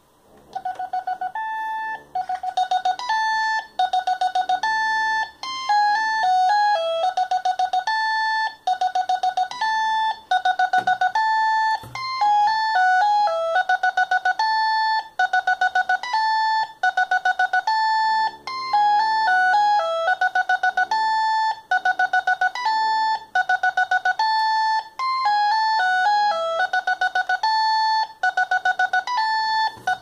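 Philips Fisio 620 mobile phone playing one of its built-in ringtones through its small speaker: an electronic melody of short beeping notes that starts about a second in and repeats its phrase.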